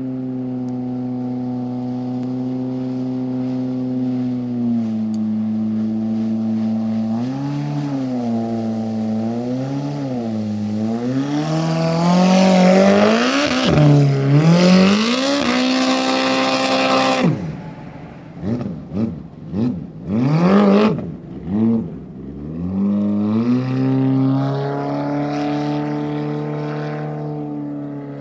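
Yamaha GPR personal watercraft with a Yamaha SHO four-stroke conversion engine, on its break-in run, running out on the lake. The engine note grows steadily louder, then the revs rise and fall as the throttle is worked. It is loudest about halfway through, with a hiss of spray. Then the revs drop suddenly and swing quickly up and down several times before settling back to a steady drone.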